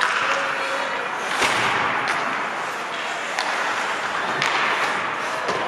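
Ice hockey play in a rink: a steady scraping hiss of skates on the ice with about six sharp cracks from sticks, puck and boards.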